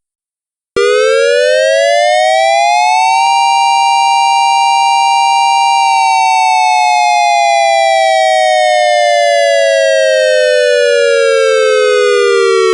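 Dual-tone outdoor warning siren sounding a test, its two tones near 932 and 788 Hz. It winds up for about two and a half seconds, holds steady for about three seconds, then slowly winds down until it cuts off abruptly.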